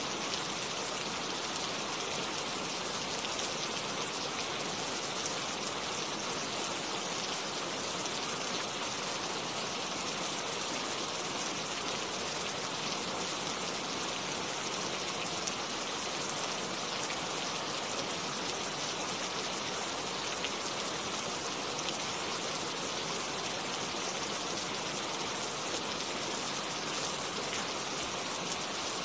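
Steady rain falling, an even hiss of drops with no thunder.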